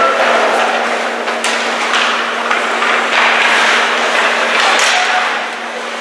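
Ice hockey game play in a rink: a loud, continuous din with a few sharp knocks of stick and puck against the boards, over a steady low hum.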